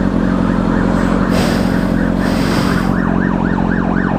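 Emergency vehicle siren, faint at first, then from about three seconds in a loud fast yelp sweeping up and down about three times a second. Under it, the steady running of a motorcycle engine.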